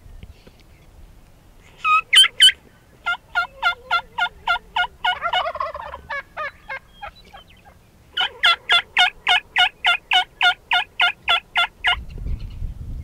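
Turkey calling: a few loud notes about two seconds in, then two long runs of evenly spaced calls, about four or five a second, with a short break in the middle.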